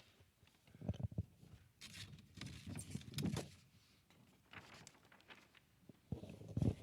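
Children walking up to the front of a sanctuary: footsteps and shuffling with scattered soft thumps and rustling, and a few louder knocks about a second in, in the middle and near the end.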